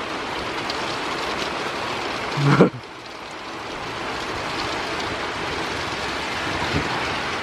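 Steady rain hissing, slowly getting heavier. About two and a half seconds in, a brief rising voice-like sound is the loudest moment.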